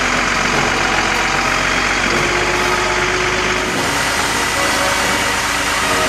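Heavy diesel truck engine running steadily.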